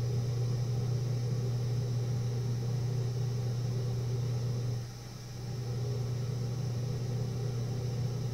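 Steady low hum in the background of a recorded interview, which dips briefly about five seconds in.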